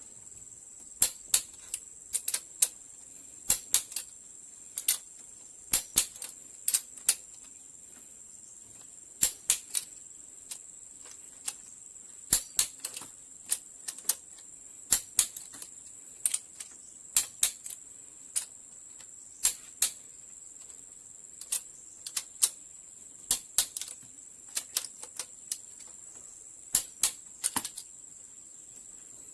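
Irregular sharp clicks and taps, one or two at a time, over a steady high-pitched chirr.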